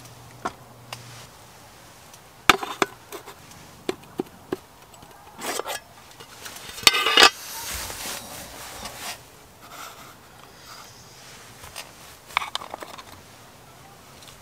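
Clinks, taps and knocks of camp tableware on a wooden slat table: a glass soju bottle and small metal cups being handled. A louder metal clatter and scrape comes about seven seconds in, and chopsticks click against sea snail shells near the end.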